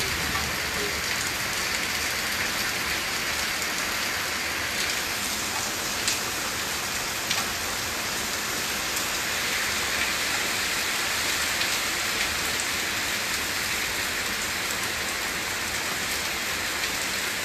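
Heavy rain pouring steadily onto paving and standing water in a storm, a dense even hiss. A couple of brief knocks stand out about six and seven seconds in.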